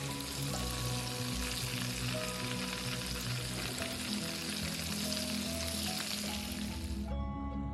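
Breaded pork chops sizzling in a pan of hot oil, a steady crackling hiss that cuts off suddenly near the end.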